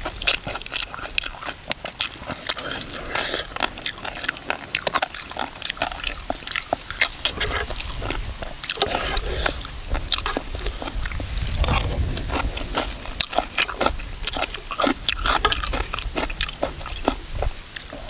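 Close-up eating of a Thai pounded cucumber salad: wet chewing and smacking, with a quick run of crisp crunches and clicks throughout.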